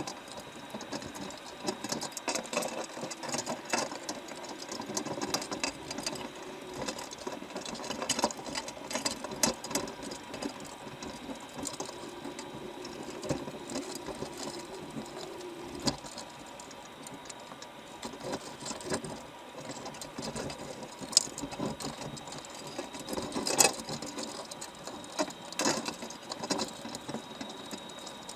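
Underwater, a dense irregular crackle of clicks and taps from crabs working at the bait and climbing the wire mesh of a crab trap, with a few louder knocks near the end. A faint steady high whine sits underneath.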